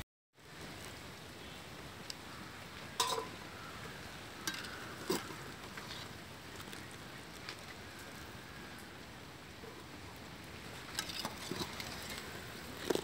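Large aluminium pot of water at a rolling boil over a wood fire: a steady bubbling hiss. A few short clicks and knocks cut through it, about three to five seconds in and again near the end.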